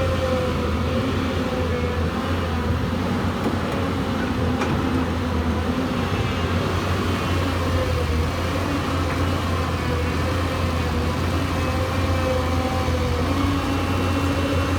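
Hyundai Robex 220-9SH excavator's diesel engine running steadily under work, a low drone with a higher whine that wavers slightly in pitch.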